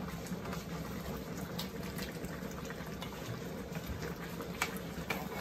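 Pork and its sauce boiling in a wide steel wok over a strong charcoal fire, a steady bubbling and sizzle, with a few light clicks as the wooden spatula stirs against the pan.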